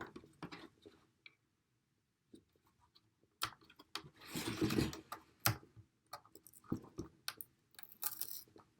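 Light clicks and taps from handling a small plastic audio interface, with a short scratchy scraping about four to five seconds in, as an adhesive rubber pad on its case is picked at and peeled up.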